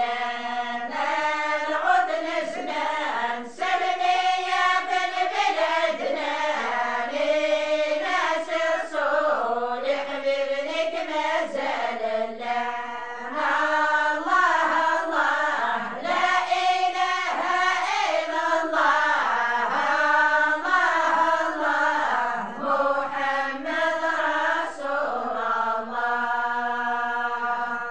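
A group of women singing a religious praise song (madih) in Tamazight, unaccompanied and in unison, in a chant-like melody.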